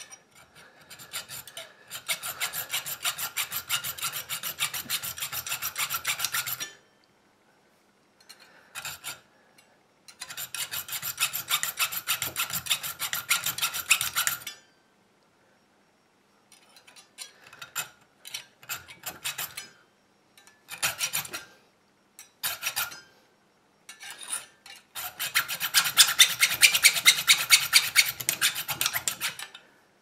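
Hand hacksaw cutting into the brass body of an ABUS 45/50 padlock held in the hand, deepening the side cut to expose the hardened steel shackle. Runs of quick back-and-forth sawing strokes with short pauses between, a few brief strokes in the middle, and the longest and loudest run near the end.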